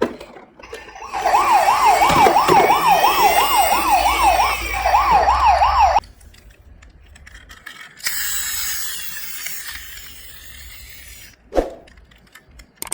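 Emergency-vehicle siren in a fast yelp, its pitch swinging up and down about two and a half times a second, with a short break just before it cuts off abruptly. After a pause there is a quieter rushing hiss for a few seconds, then a single knock.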